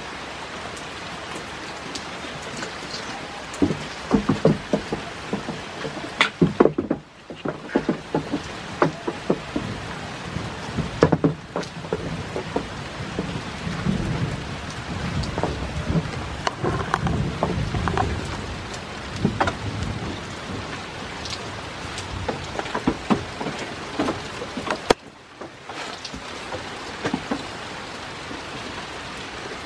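Steady rain falling, with frequent sharp knocks and thumps of goat hooves on wooden porch boards.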